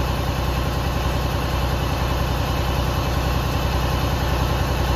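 Detroit DD15 inline-six diesel engine running steadily at a raised idle of about 1,250 rpm, held there by the engine computer during a parked DPF regeneration.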